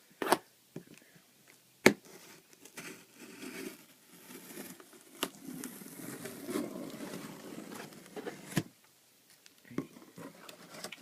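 Packaging being handled and pulled out of a cardboard shipping box: rustling and crinkling for several seconds, with a few sharp knocks of the box and board.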